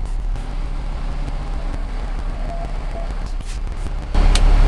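M1078 LMTV military truck's diesel engine running at low speed as the truck is driven slowly into position, a steady low rumble with a few light clicks. About four seconds in, a louder rushing noise rises over it.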